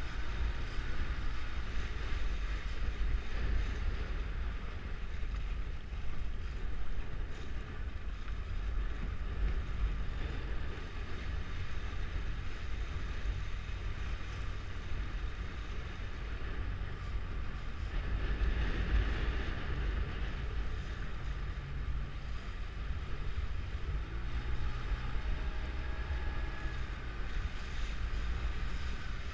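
Strong wind buffeting the microphone in a steady low rumble, over water rushing and splashing as a small sailing dinghy planes through choppy water in gale-force wind.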